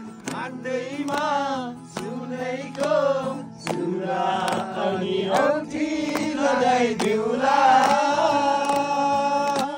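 Men singing together to an acoustic guitar, with hand clapping along to the song.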